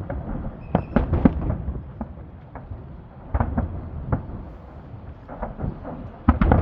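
Festive fireworks salute: shells bursting in irregular clusters of sharp bangs over a steady low rumble. There is one cluster about a second in, more around three and a half and five and a half seconds, and a loud pair near the end.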